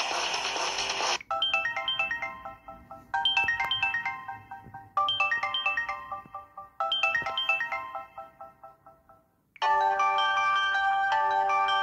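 Samsung Galaxy Gio ringtones playing one after another. A short melody of chiming notes repeats four times, after the tail of a noisier tone about a second in. A different ringtone with held notes starts near the end.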